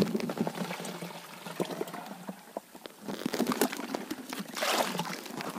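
Water splashing and gurgling into an orange plastic container dipped into a hole in river ice as it is filled, with small knocks of the container against the ice. The water sound grows louder from about three seconds in.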